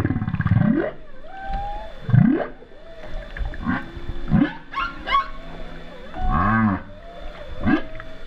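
Humpback whale calls heard underwater: a loud buzzy call that stops about a second in, then a series of low moans sweeping up in pitch, an arched moan rising and falling about six and a half seconds in, and higher squeals and whoops between them.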